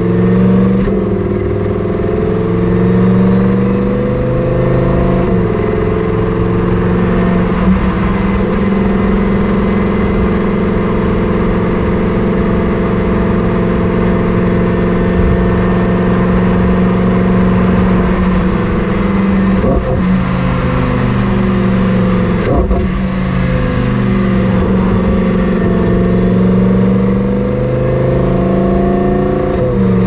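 Lamborghini Huracán STO's naturally aspirated V10, heard from inside the cabin, pulling through the gears. The revs climb and drop back at two upshifts in the first few seconds, then hold steady at cruising revs. About two-thirds of the way in, two sharp cracks come at a downshift before the revs climb again.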